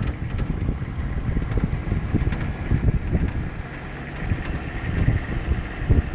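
Vehicle driving, a low engine and road rumble with irregular bumps and jolts, and wind buffeting the microphone.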